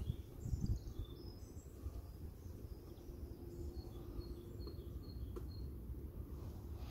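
Quiet outdoor background: a steady low rumble with a few low thumps right at the start, and a small bird chirping short high notes, including a quick run of about five evenly spaced chirps in the middle.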